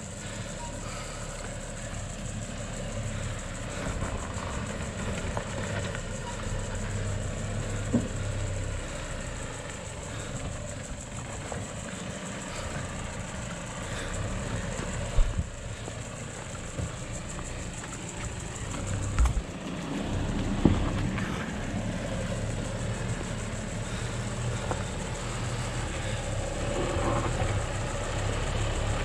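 Four-wheel-drive ute's engine running at low revs as it crawls over a rutted dirt track. A few sharp thumps, the loudest about halfway through and again about two-thirds of the way through.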